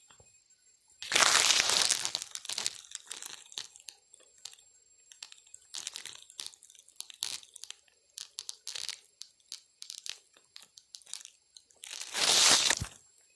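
Dry grass and straw rustling and crunching close to the microphone, with two louder bursts about a second in and near the end and scattered small crackles between.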